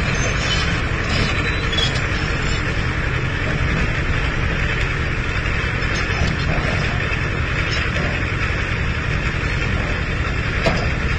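Heavy diesel engine running steadily, a continuous low rumble with a dense noisy haze over it.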